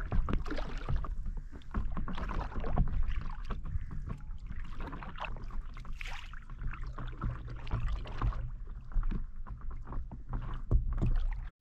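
Water splashing and sloshing in uneven strokes, over a low rumble of wind on the microphone.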